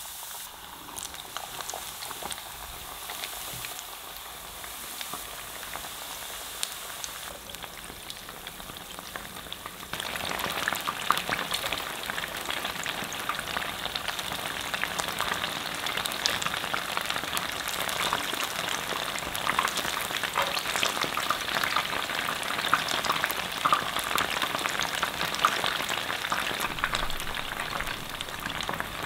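Coated chicken wings deep-frying in hot oil in a pot: a steady sizzling crackle thick with tiny pops. It turns clearly louder about ten seconds in.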